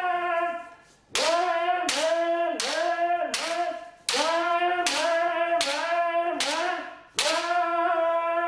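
Kendo kiai: a high, sustained shout broken by sharp strikes of the shinai, about one every three-quarters of a second. The cry dips in pitch after each strike, fades out twice and is held unbroken near the end.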